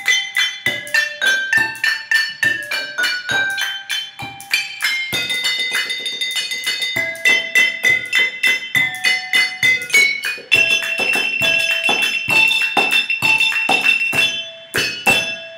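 Music played on kitchen objects: ringing pitched notes from water-tuned wine glasses and bottles carry the melody over a steady beat of clicks and taps from a plastic bowl and hand percussion. Past the middle a chord is held while the beat goes on, and it ends on a few last strikes that die away.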